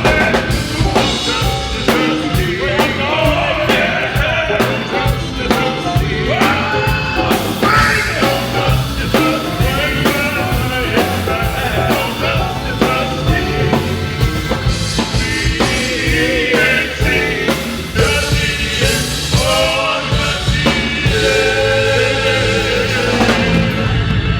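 A live band with a drum kit playing, with voices singing over it.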